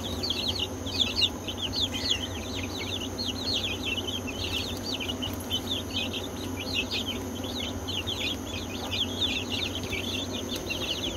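A brood of young chicks peeping without pause, many short, high, falling chirps overlapping, over a steady low hum.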